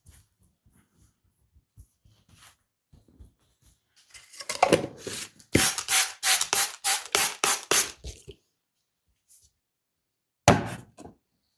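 Quick rhythmic rubbing strokes of a face or head massage: a longer rough rub, then about ten fast strokes at roughly four a second, and one more short rub near the end.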